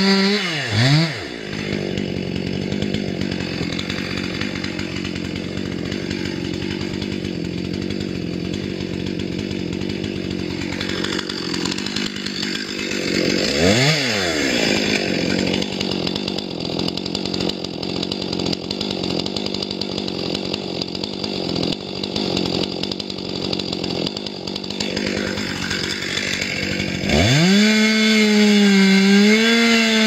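Chainsaw running under load through wood at a steady, lowered pitch. Its revs dip and recover briefly midway, and near the end it revs up to a higher, louder pitch as the chain comes free.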